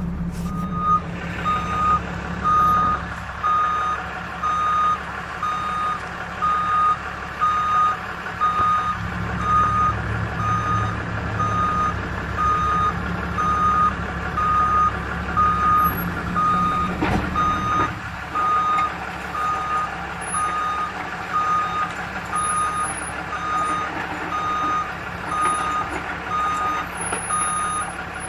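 Tow truck's backup alarm beeping steadily, about three beeps every two seconds, over the low rumble of the truck's engine as it reverses.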